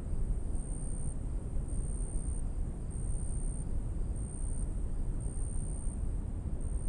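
Outdoor evening ambience: a steady low rumble with a high, thin insect trill pulsing on and off about once a second.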